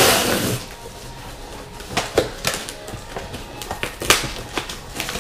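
A cardboard shipping box being opened by hand: a rasping tear of packing tape at the start, then scattered scrapes, taps and crinkles of hands working the cardboard flaps.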